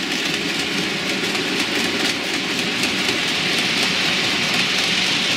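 OO-gauge model freight train of TTA tank wagons running over the layout's track and points, a steady rolling rattle of small wheels on rail with rapid light clicks.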